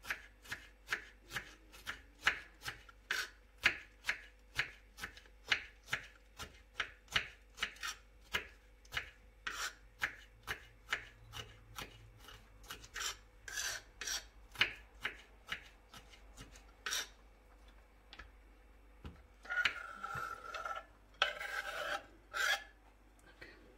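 Knife slicing long green sweet peppers on a wooden cutting board: steady knife strikes against the board, about two a second, stopping after about 17 seconds. Near the end come a few seconds of scraping as the slices are pushed off the board.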